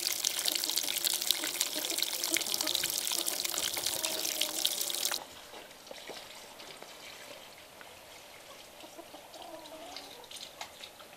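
Water running from a hose and splashing as a muddy ceramic cup is rinsed under it. The water sound cuts off suddenly about five seconds in, leaving only faint outdoor background.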